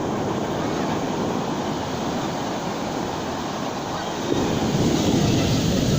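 Ocean surf washing onto a beach, mixed with wind rumbling on the microphone; the noise grows louder about four seconds in.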